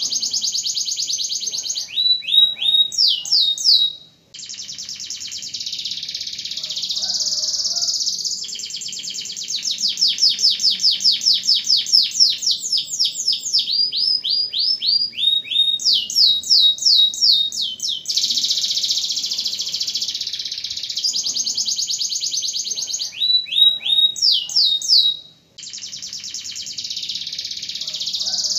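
Domestic canary singing a long, unbroken song of rapid rolling trills alternating with runs of quick repeated sweeping notes. It pauses briefly twice, about four seconds in and again about twenty-five seconds in.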